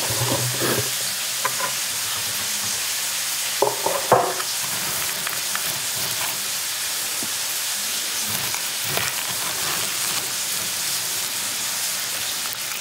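Plastic bucket lid coming off with a couple of sharp knocks about four seconds in, then a steady rustle and rattle of dry pinto beans being stirred and scooped with a plastic scoop.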